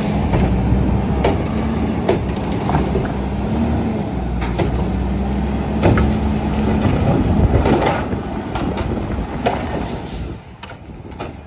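Front-loader garbage truck with a Curotto-Can automated arm: diesel engine running with a steady whine while the arm grabs a wheeled trash cart, tips it to empty it and sets it back down, with repeated knocks and clatter of the cart and arm. The whine stops about seven seconds in, and the sound drops away near the end.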